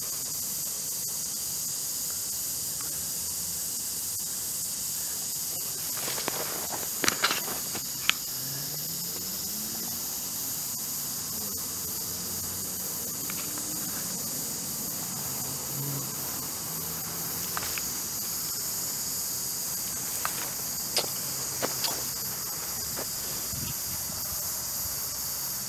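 Steady high-pitched chorus of insects in the grass at dusk. A few brief rustles and clicks come about a quarter of the way in and again near the end.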